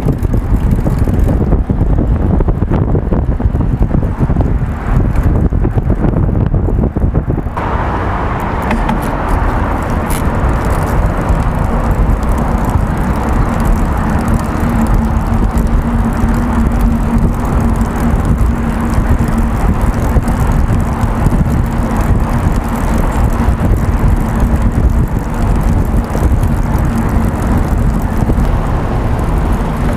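Wind buffeting a bicycle-mounted action camera's microphone over road rumble, with traffic on a city road. The noise changes abruptly about seven seconds in, turning brighter and hissier, and a steady low hum joins it from about twelve seconds in.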